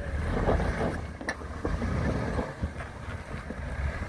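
Jeep Wrangler engine running low and slow as the Jeep crawls over rocks, with wind buffeting the microphone. A single sharp knock about a second in.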